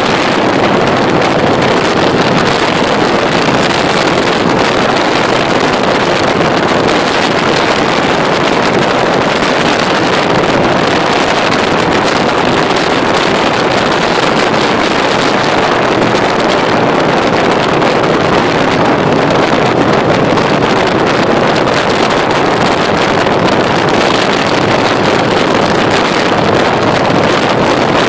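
Harley-Davidson Softail Crossbones V-twin engine running at a steady cruise, heavily mixed with wind rushing over the microphone. The sound stays even throughout, with no shifts or revs.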